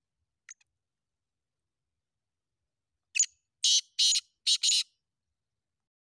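Black francolin (kala teetar) calling: one faint short note about half a second in, then about three seconds in a single loud, harsh phrase of five quick notes.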